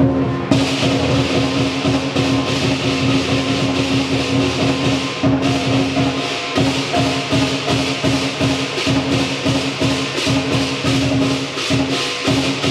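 Lion dance percussion ensemble playing: drum and clashing cymbals keep a fast, steady beat. The cymbals come in about half a second in and break off briefly near the middle.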